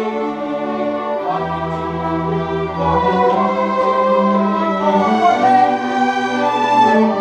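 School string orchestra of violins, violas and cellos sight-reading a new piece at a slow, stately maestoso tempo, with held notes moving in chords. A deep bass note sounds for a second or two near the middle.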